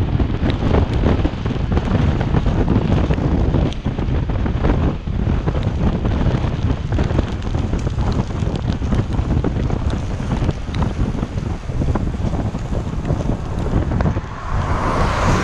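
Wind buffeting the microphone of a camera on a moving recumbent trike, a heavy low rumble with many small knocks and rattles from the ride over the road.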